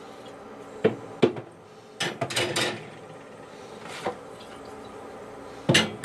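Glass beer bottles knocking and clinking against the chrome wire racks of a wine refrigerator as they are set in place: a few sharp single knocks, a short clattering run about two seconds in, and a louder double knock near the end.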